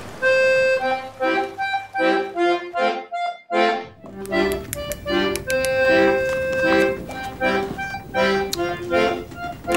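Accordion music: a melody over regularly repeated chords in the bass, briefly dropping out about three seconds in.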